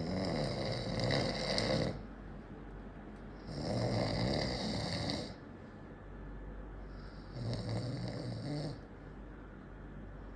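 Man snoring: three loud rasping snores about three and a half seconds apart, with quieter breathing between them.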